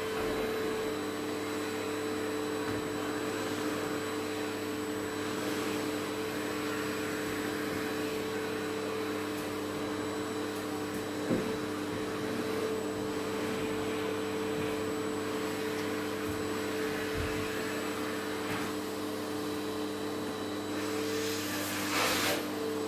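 Red canister vacuum cleaner running steadily as its floor nozzle is worked over a tiled floor. There is a single knock about halfway. Near the end come two short, louder rushes of air.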